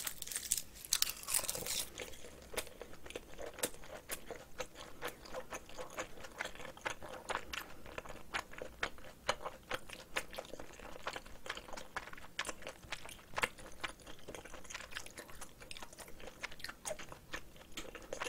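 Close-miked chewing of a spoonful of rice mixed with spicy seasoned cockles: a steady run of small wet clicks and crunches, busiest in the first two seconds.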